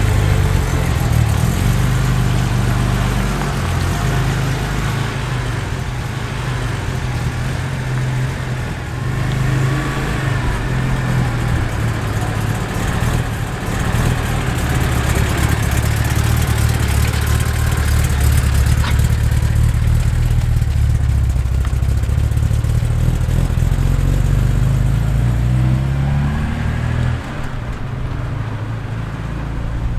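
Aston Martin DB5's straight-six engine running, its low note shifting in steps as the revs change.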